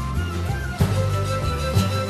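Instrumental music: a bass pattern under a long held melody note that enters just under a second in.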